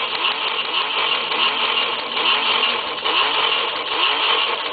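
Disney Cars Shake 'n Go Lightning McQueen toy car being shaken to rev it up. Its speaker plays an electronic engine-revving sound, with a pitch sweep repeating about two or three times a second over a steady hiss.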